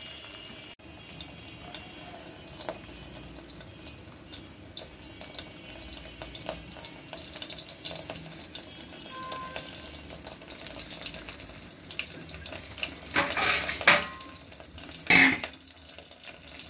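Egg omelette sizzling in hot oil in a frying pan, with a wooden spatula scraping and pressing it against the pan. Louder scrapes and knocks of the spatula and pan come twice near the end.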